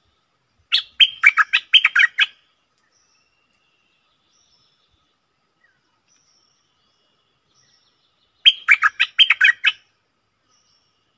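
Stripe-throated bulbul singing: two short, loud phrases of quick notes, each just over a second long, one about a second in and one near the end. Faint, thin calls of other birds sound in the gap between them.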